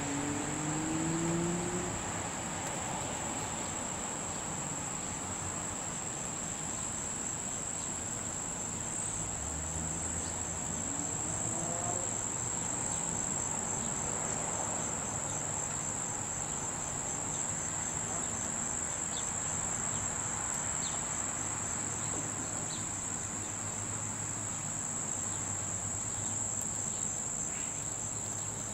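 Steady high-pitched trill of a summer insect chorus, continuous throughout, with a faint low hum underneath.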